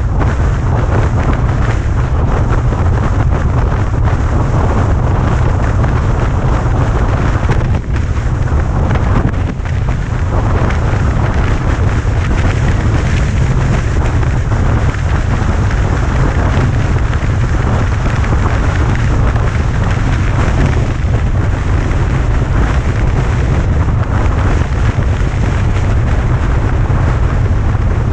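Loud, steady wind buffeting on the microphone: a heavy low rumble with rushing noise over it.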